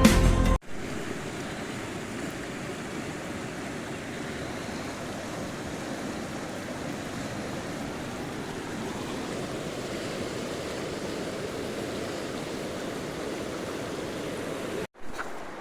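Steady rushing of a river's flowing water. Background music cuts off about half a second in.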